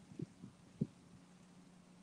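A faint, steady low hum with three soft, low thumps in the first second.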